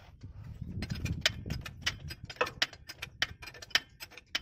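Sharp metallic clicks and taps of hand tools working on a truck's clutch linkage while its free play is adjusted, several a second and irregular, with a low rumble in the first half.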